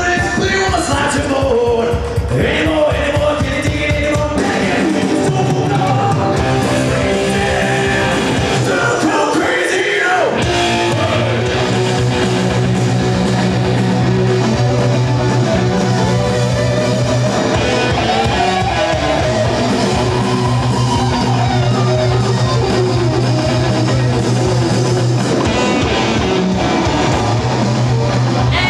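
Rock band playing: a singer over electric guitar, bass and drums, with a steady bass line underneath. The low end drops out briefly about a third of the way in.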